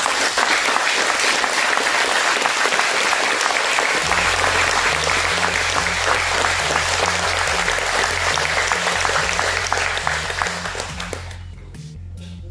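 A crowd applauding steadily, dying away about eleven seconds in. From about four seconds in, music with a repeating low bass pulse plays underneath.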